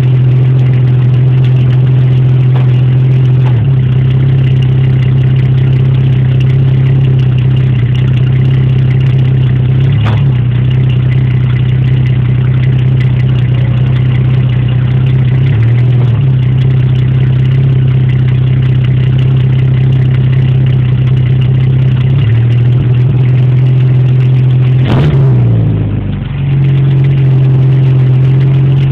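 Exhaust of a mid-1970s Ford Granada Ghia with the engine running, a loud steady low drone from the tailpipe and silencer. The note shifts slightly in pitch a few times and dips briefly before picking up again near the end.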